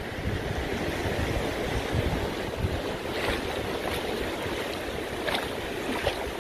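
Small surf washing onto a shallow sandy beach, with wind rumbling on the microphone.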